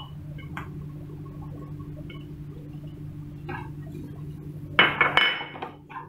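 Spatula stirring chopped vegetables in a frying pan: light scrapes and clicks, then a cluster of loud ringing clinks about five seconds in as it knocks against the pan, over a steady low hum.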